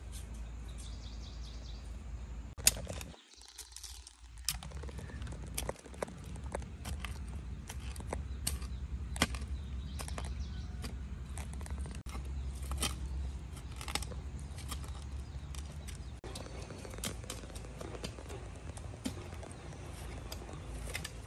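Irregular clicks and knocks of hand building work, a sharp one about three seconds in, over a low steady rumble, with a few faint bird chirps.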